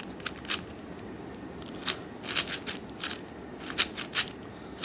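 Meilong 4 4x4 speedcube being turned by hand during a solve: short plastic clicks of the layer turns, at uneven intervals and bunched into quick runs of finger tricks.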